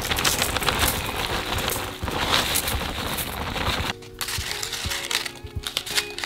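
Buttered biscuit crumbs pour and rattle out of a plastic zip-top bag into a parchment-lined cake tin while the bag crinkles, for about four seconds. The sound then cuts off abruptly, leaving light taps of a glass pressing the crumbs down over soft background music.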